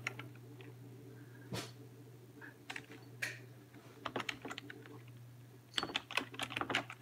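Typing on a keyboard: a few single key clicks, then quick runs of keystrokes about four seconds in and near the end, over a steady low hum.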